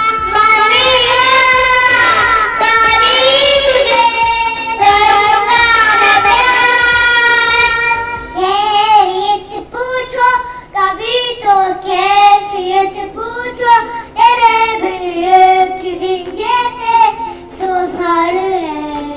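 A child's high voice singing a song over music. Long wavering held notes for the first half give way to quicker sung syllables about eight seconds in.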